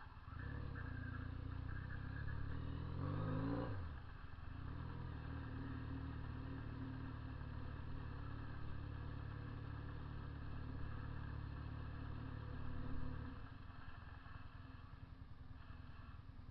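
Honda CB 400 II motorcycle engine running, revving up briefly about three seconds in and dropping back, then holding a steady note until it stops about three seconds before the end.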